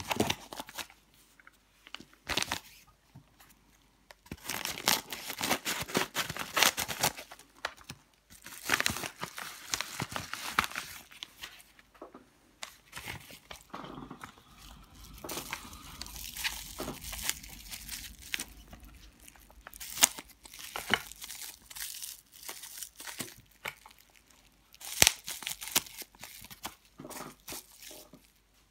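A padded kraft-paper mailer and clear plastic wrapping being handled, torn open and unwrapped by hand: irregular bursts of rustling and crinkling with short pauses, and a couple of sharp clicks.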